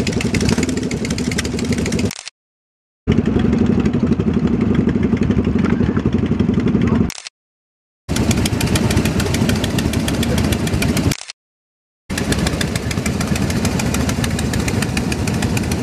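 Custom chopper motorcycles idling together, their engines making a fast, even firing beat. The sound cuts to dead silence three times, each for under a second.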